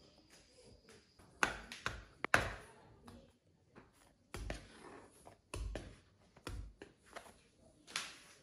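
Pizza dough being divided and balled by hand: a plastic dough scraper working on a granite worktop and dough balls set down in a plastic dough tray, giving a run of short knocks, thumps and scrapes.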